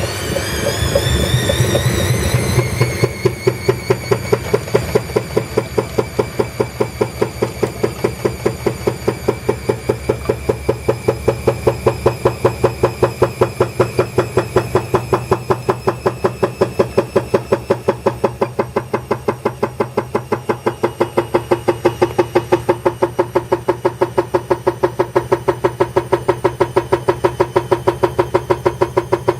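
Bosch Advantixx 7 washing machine running with its drum turning: a rising motor whine for the first few seconds, then a steady hum with a regular beat of about three pulses a second. The noise comes from a worn drum shaft bearing ring.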